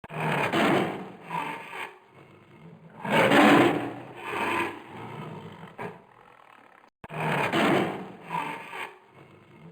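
An animal's rasping, noisy call, given as a series of breathy bursts of one to two seconds each, with short pauses between.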